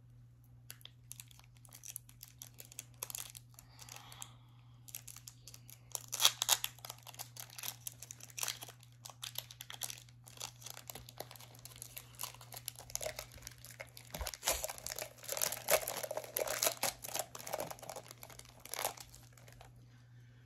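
Foil Pokémon card booster pack crinkling and tearing as it is handled and torn open, in irregular crackling bursts that are loudest about six seconds in and again between about fourteen and nineteen seconds in. A steady low hum sits underneath.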